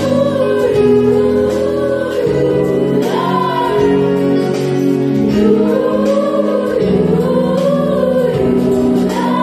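A children's choir singing a gospel worship song in unison, accompanied by sustained chords on an electronic keyboard.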